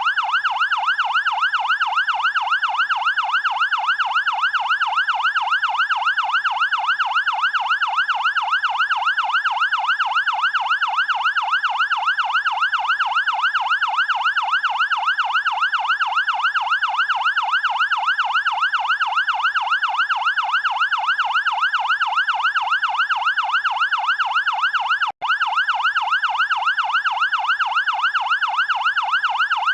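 Fire engine siren in a fast yelp, its pitch sweeping rapidly up and down in an even, unbroken cycle. It cuts out for an instant about 25 seconds in.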